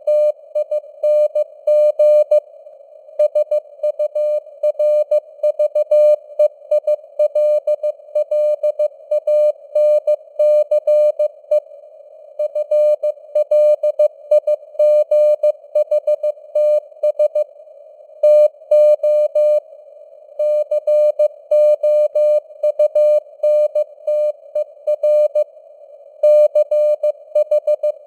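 Morse code (CW) at 15 words per minute: a single tone of about 600 Hz keyed on and off in dots and dashes, over simulated radio band noise with varying signal strength (QSB). A few brief pauses fall between groups of characters.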